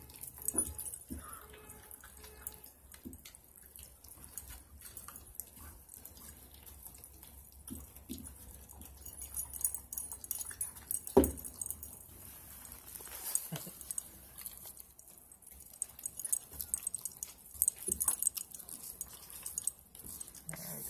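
Husky and malamute puppies chewing raw chicken drumsticks, bone and all: wet smacking and crunching with scattered small clicks. There is one sharp knock about 11 seconds in.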